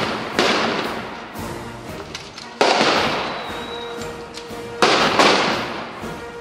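Rifles firing blank rounds in a mock battle: four sharp shots, one about half a second in, one near the middle and two close together near the end, each with a long echoing tail.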